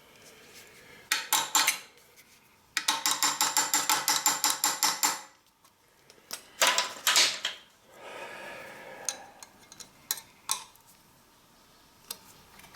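Metal clinks and knocks from hand tools working on a steel machine frame. About three seconds in comes a rapid, even run of clicks, about ten a second, lasting over two seconds.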